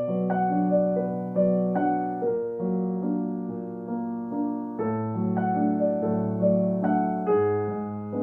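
Background piano music: a slow, gentle melody of single struck notes over sustained lower notes.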